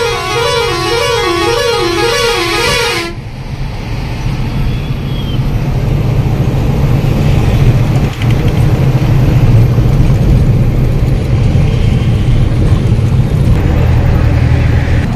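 A warbling multi-tone vehicle horn sounds for about the first three seconds, its pitch rising and falling about twice a second, then cuts off. After that a truck engine runs with a steady low drone.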